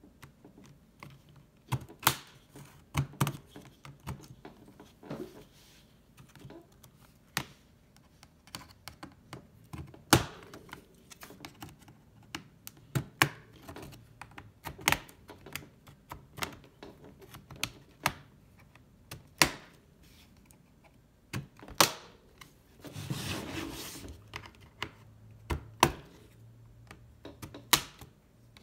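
HP laptop's plastic case clips clicking and snapping as a plastic opening tool pries along the seam, in irregular sharp clicks. Near the end comes a longer scraping rasp of the tool sliding along the edge.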